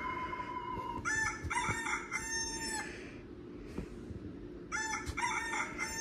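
Rooster crowing sound effect played twice through a tablet's speaker, each crow lasting about two seconds.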